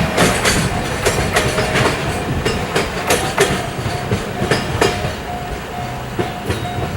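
Container flat wagons clattering over rail joints during a slow shunting move, a quick run of clacks that thins out after about five seconds. A Japanese level-crossing warning bell rings steadily about twice a second throughout, heard more clearly in the second half.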